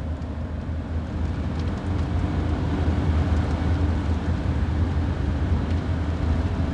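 Car driving at motorway speed, heard from inside the cabin: a steady low engine and road drone.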